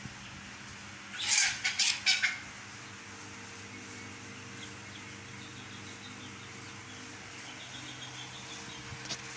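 Chickens in a poultry house: a brief flurry of wing-flapping about a second in, over a steady low hum.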